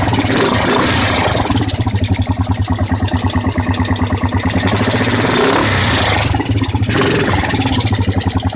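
Kawasaki Teryx V-twin, bored to 840cc, running with its carburetor intakes open. The throttle is opened three times: at the start, about five seconds in, and about seven seconds in. Each opening brings a rush of intake noise, with an uneven pulsing idle between. This is the test of a mid-throttle sputter and backfire that the owner is trying to diagnose.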